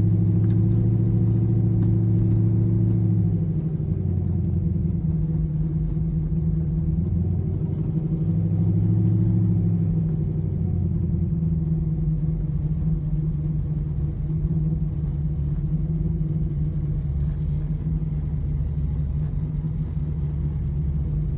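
A drag-race Mustang's engine idling steadily, its speed rising briefly about halfway through and settling back.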